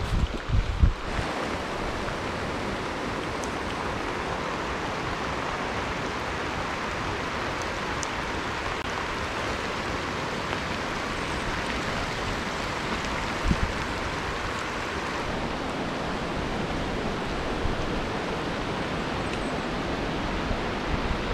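Steady rushing of water, a constant hiss-like roar with no change in it, with a few brief low thumps near the start and once about midway.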